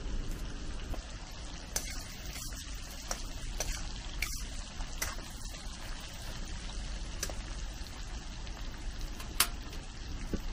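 Pork and vegetables stir-frying in a wok: a steady sizzle, with a metal spatula scraping and knocking against the pan now and then, and one sharper clank near the end.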